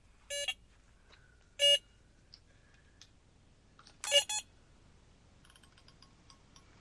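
Electronic carp bite alarm giving a few short, irregular single beeps, with a quick double beep about four seconds in, as line is pulled across its sensor: a fish has picked up the bait.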